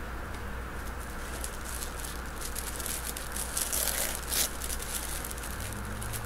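Tissue paper rustling and crinkling as hands fold it back inside a cardboard gift box, in short irregular crackles that are busiest about four seconds in, over a low steady hum.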